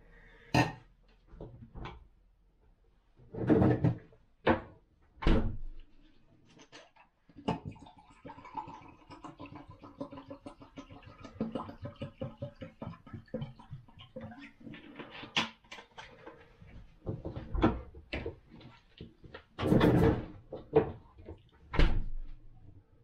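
Water being poured into a stemmed glass at a kitchen counter: knocks and clunks of the glass and container on the countertop, then a stretch of about eight seconds of pouring with rapid glugging, then more knocks as things are set down.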